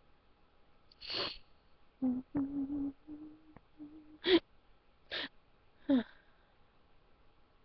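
A person holding back a sneeze: a sharp breath in about a second in, a few short hummed sounds, then three sharp, stifled bursts of breath, the first the loudest and the last falling in pitch.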